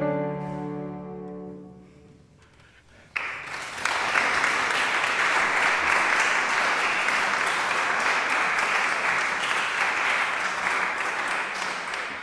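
The last cello note of a song fades away over about two seconds; after a short pause an audience breaks into applause, which goes on steadily to the end.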